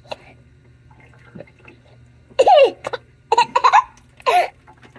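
A baby laughing and squealing with his mouth in a drinking fountain's stream, in three loud bursts through the second half, over a steady low hum.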